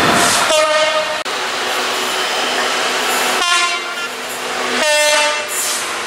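Diesel freight locomotives, Class 66 type, sounding their horns in three separate blasts, the middle one the longest, over the steady noise of a passing freight train.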